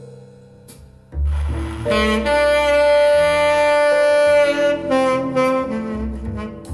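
Jazz recording with a saxophone playing a long held note over piano and double bass, played back through Radiotehnika S-90 loudspeakers.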